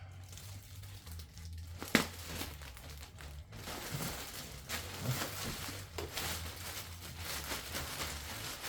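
Plastic packaging crinkling and rustling as a mower's grass-catcher bag is pulled out and unwrapped, with one sharp snap about two seconds in.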